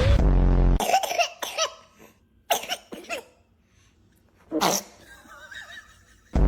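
A baby making several short, sneezy coughs and breathy sounds, the sharpest about four and a half seconds in. A loud, deep, steady burst cuts off just under a second in, and another starts near the end.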